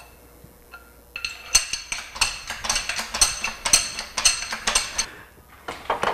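Metal clanking in a steady rhythm of about two to three strokes a second, each with a short ringing tone, as a hydraulic transmission jack is pumped up under the exhaust. It starts about a second in and stops near the end.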